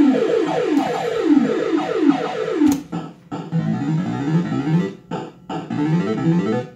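Bell-Fruit Cash Explosion fruit machine playing its electronic sound effects: a fast run of falling bleeps, about three a second, then a sharp click and a different run of rising bleeps broken by short gaps.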